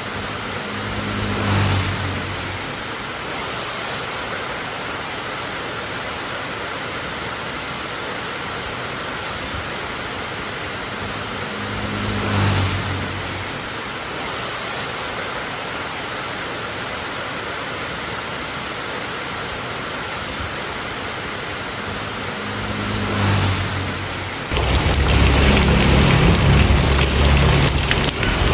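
Steady soft hiss of a looped rain white-noise recording, swelling briefly three times about eleven seconds apart. Near the end it switches suddenly to louder, heavier rain with a deep rumble underneath.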